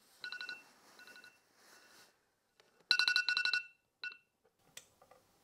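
Electronic phone ringtone sounding in short bursts of a rapid trilled beeping, loudest about three seconds in: an alarm ringing in the darkened hotel room to wake the sleepers.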